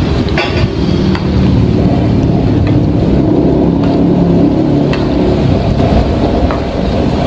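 Shallots coated in cornflour deep-frying in a wok of hot oil, making a steady, loud frying noise, with a few sharp clinks of the metal spatula against the wok as they are stirred.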